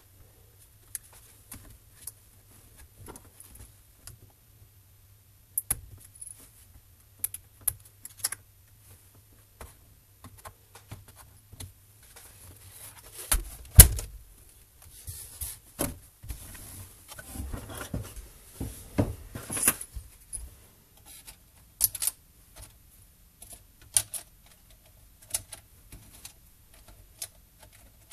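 Scattered clicks, taps and clatter from an Acer Aspire V3-771G laptop being handled during disassembly: its plastic case parts, cables and a small tool knocking. A heavier thump about halfway through as the laptop is turned over.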